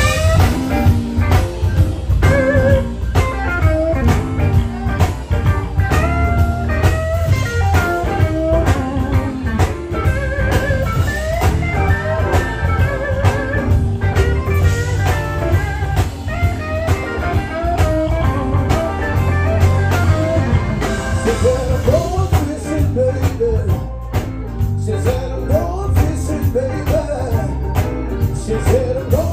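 Live electric blues band playing: electric guitar lead lines over bass and a steady drum beat, with a man singing in the last several seconds.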